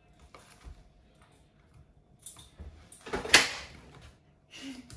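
Faint scraping of utensils in a baking tin of cake batter, then a sudden loud clatter a little over three seconds in.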